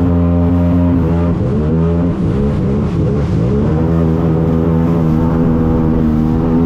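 Jet ski engine running at high revs, easing off briefly about a second and a half in and then revving back up to a steady pitch.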